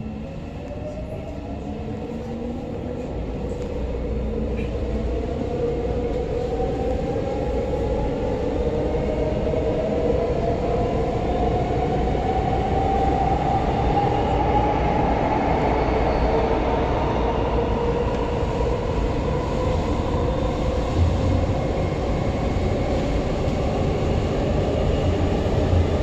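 Sinbundang Line subway train pulling away and accelerating, heard from inside the car: a motor whine rises in pitch and the running noise grows louder, then both level off at cruising speed over a steady rumble.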